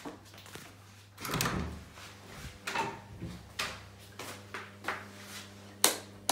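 The lever handle and latch of an interior wooden door are worked and the door is opened, with a string of knocks and rattles. A sharp click just before the end is the loudest sound.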